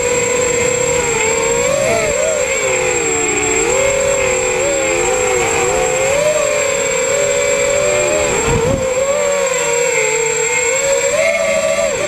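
FPV quadcopter's electric motors and propellers whining, heard from the onboard camera, the pitch swinging up and down with the throttle, with a steady high-pitched tone above.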